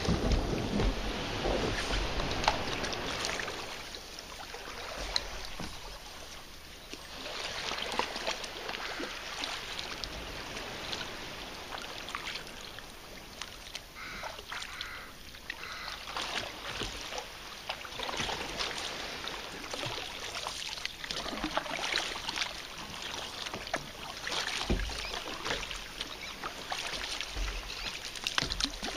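Kayak paddle strokes through calm water: the double-bladed paddle dips and pulls, with irregular small splashes and drips and water washing along the hull.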